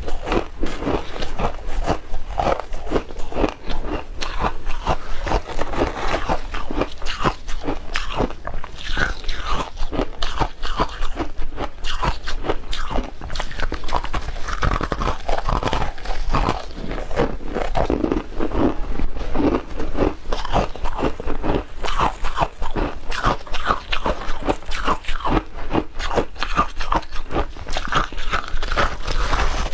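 Frozen matcha ice chunks dusted with shaved ice, bitten and chewed close to the microphone: dense, continuous crunching with no pauses.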